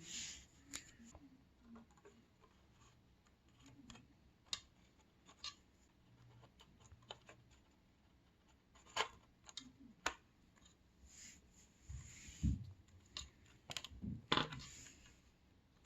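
Faint, scattered small plastic clicks and handling noise from a motherboard's RAM slot latches being pushed open and DDR4 memory sticks being handled, with a few sharper clicks spread across it.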